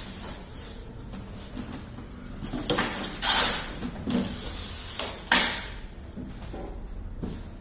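Cardboard box and packing being handled as a new water pump is unboxed: a few loud scraping, rustling sweeps, the strongest about three seconds in and again about five seconds in.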